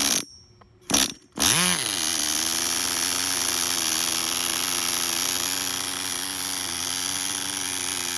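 Tamiya TGS-R's small nitro glow engine: two brief bursts, then it catches about a second and a half in, its revs falling quickly before it settles into a steady, high idle, the idle speed having just been turned up a lot.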